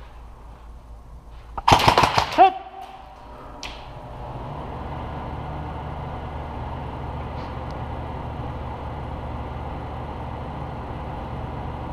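Airsoft gun firing a short rapid burst of shots about two seconds in, lasting under a second. A steady low hum follows from about four seconds in.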